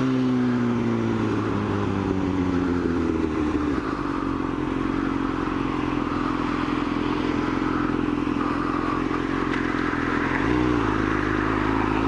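Sport motorcycle engine running under way. Its pitch eases down over the first few seconds, holds steady, shifts briefly about ten seconds in, then climbs again near the end, with wind rushing over the helmet-mounted microphone.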